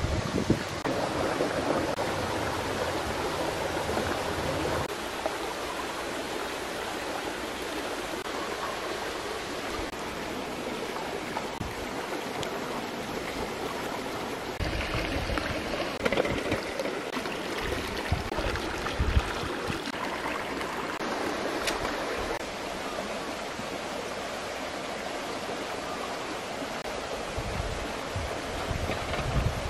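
Stream water rushing steadily over rocks, with a few low bumps partway through.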